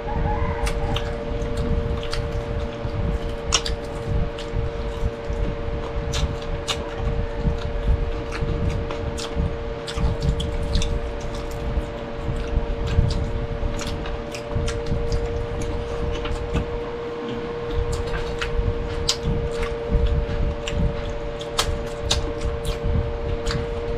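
Close-miked mukbang eating: people chewing with wet smacking and frequent sharp mouth clicks. A steady hum runs underneath.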